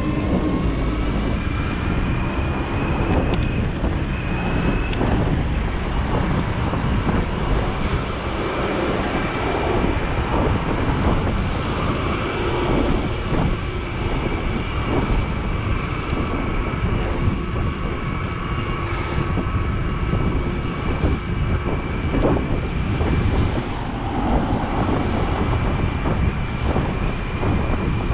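Wind buffeting an action camera's microphone, with tyre and road noise, while riding an e-bike along a street. A steady thin high whine runs through it.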